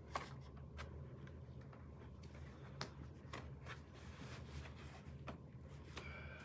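Hands handling and fitting plastic animatronic parts: a few light clicks and rustles, spaced irregularly, over a steady low hum.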